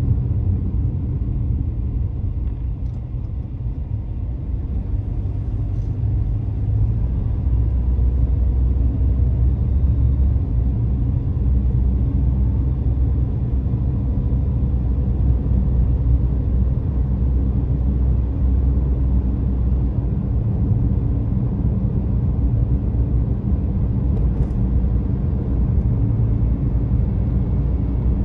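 Car cabin noise while driving: a steady low rumble of tyres and engine, easing slightly a few seconds in and then holding steady.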